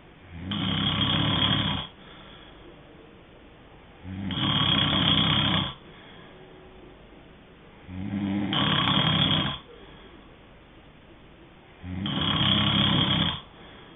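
A sleeping person snoring: four loud snores, each about a second and a half long, coming roughly every four seconds, with a low hiss between them.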